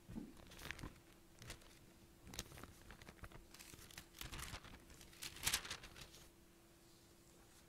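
Pages of a Bible being turned and handled at a podium: soft paper rustles coming in short spurts, the loudest about five and a half seconds in.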